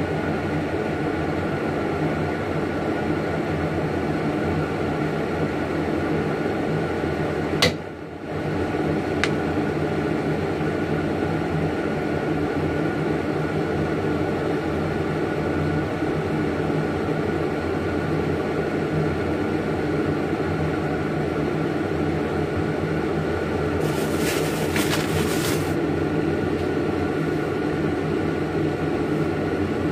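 Steady hum of an electric appliance motor with several even tones. It cuts out briefly with a click about eight seconds in, and a short rustle comes near the end.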